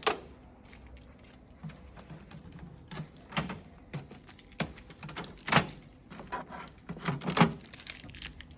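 Irregular clicks, knocks and short scrapes from hands working over a new Epson A4 printer, peeling off its blue transport tape and handling its plastic covers. They come a few at a time, louder and closer together in the second half.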